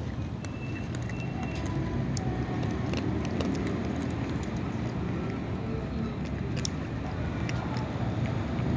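Cats crunching dry kibble, with short crisp clicks scattered through, over a steady low rumble like an engine running nearby.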